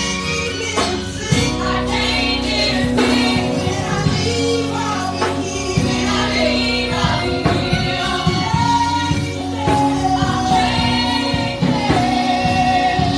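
Live gospel worship song: singers and a choir holding and bending long notes over steady instrumental accompaniment.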